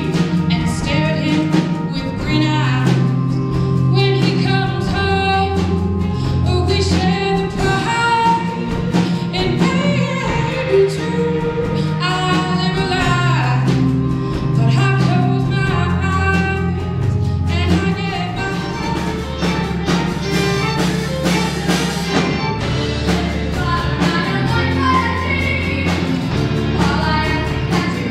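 A song from a stage musical: singing over a band, with a bass line and a steady beat.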